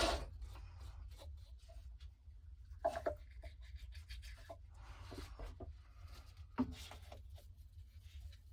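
Faint rubbing and scraping of PVC pipe and fittings being handled, with cement being brushed on, and two light knocks of plastic on plastic.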